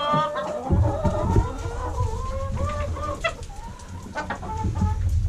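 A flock of laying hens clucking and calling over one another as they crowd around feed being poured. A low rumble runs underneath from about a second in.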